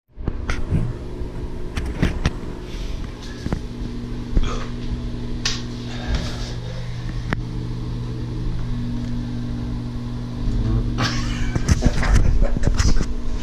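A steady low electrical hum, like a fan or motor, under irregular knocks and rubbing from a hand pressing and feeling along the acrylic floor of an empty whirlpool tub. The knocks and rubbing get busier and louder near the end.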